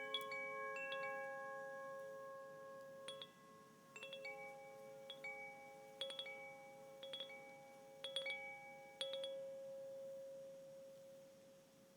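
Tuned chimes ringing: several clear notes struck every second or so, each left to ring on and overlap the next, fading away near the end.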